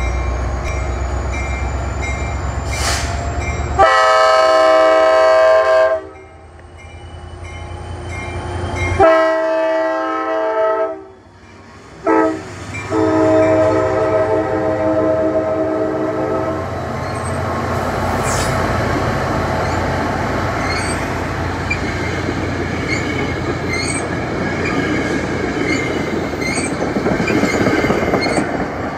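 Metro-North diesel locomotive's engine running as the train pulls away. Its multi-tone air horn then sounds the grade-crossing signal: two long blasts, a short one and a final long blast of about four seconds. After the horn, the passenger cars roll closely past with regular clacks of the wheels over the rail joints.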